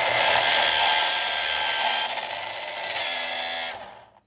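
Carrera slot car's electric motor spinning a rear wheel against an abrasive block, a steady whine with a grinding hiss as the plastic wheel is machined true. The noise winds down shortly before the end.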